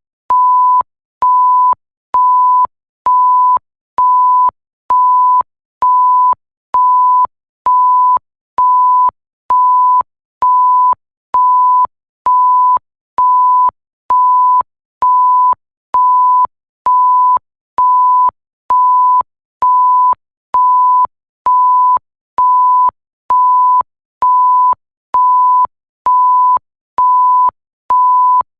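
Electronic 1 kHz pure-tone bleep repeating at an even rhythm, a little more than once a second, each beep about half a second long with short silent gaps between.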